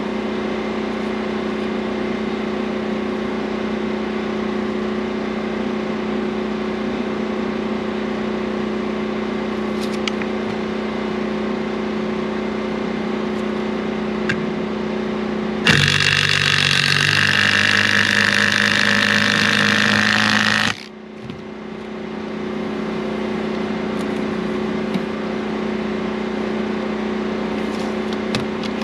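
A steady engine-like hum runs throughout, with a few faint knocks. About sixteen seconds in, a cordless drill drives a screw into a wooden 4x4 block for about five seconds. Its pitch drops in steps as it slows, then it stops suddenly.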